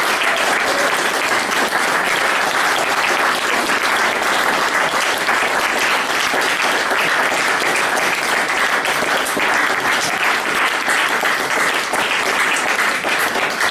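Small audience applauding with steady, dense clapping.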